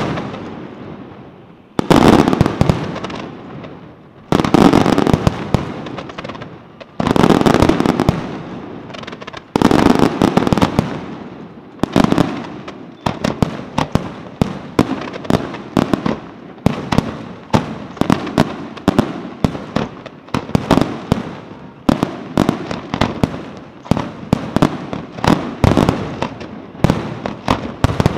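Aerial firework shells bursting in a display: four heavy booms about two and a half seconds apart, then, for the second half, a rapid volley of sharper bangs several a second.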